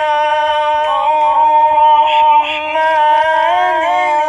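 A solo voice chanting a long, slowly ornamented melodic line, played back with an added echo: the same recording doubled by a quieter copy set slightly behind it, giving a gema (echo) effect.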